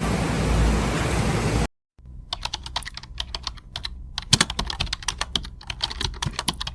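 A loud, steady rushing noise that cuts off abruptly after under two seconds. After a brief gap comes rapid, irregular clicking like typing on a keyboard.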